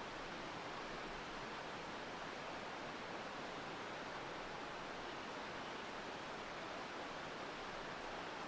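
Steady rushing of a river flowing nearby, an even wash of water noise.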